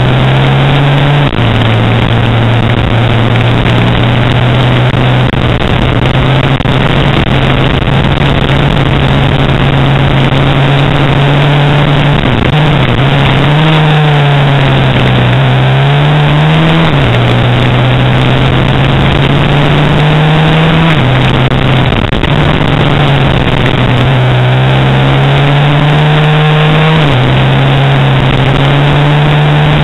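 Racing motorcycle engine heard onboard at high revs, its pitch climbing through each gear and dropping sharply at every gear change, about five shifts. Partway through, the revs dip and rise a few times as the bike slows and picks up again through a tight corner.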